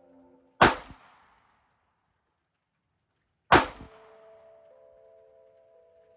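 Two pistol shots from a Sig Sauer P365, about three seconds apart, each a single sharp crack with a short echoing tail.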